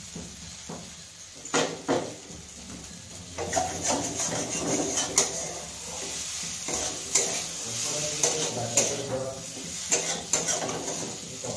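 Spatula stirring and scraping prawns in thick masala in a metal kadai, with irregular sharp clinks against the pan over a steady light sizzle of the frying masala.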